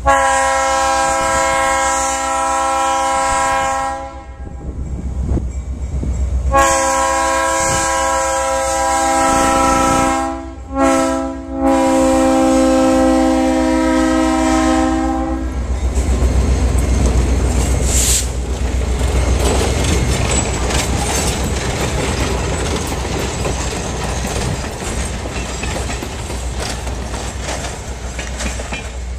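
Locomotive air horn sounding the grade-crossing signal, long, long, short, long, each blast a chord of several tones. Then the locomotive and passenger cars rumble past with wheels clicking over the rail joints.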